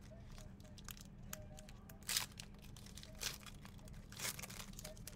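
Faint crinkling and rustling of plastic or foil trading-card packaging as cards are handled and pulled out, in a few short, separate crackles about a second apart.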